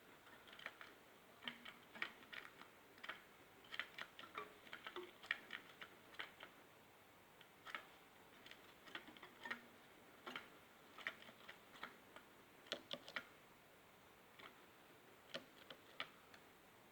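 Faint, irregular light clicks and taps from a caged European goldfinch moving and pecking about, some coming in quick clusters of two or three.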